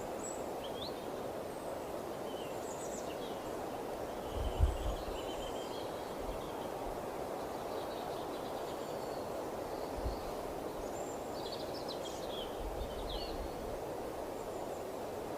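Steady outdoor wind noise with small birds chirping and calling on and off. Two brief low bumps sound about four and a half and ten seconds in.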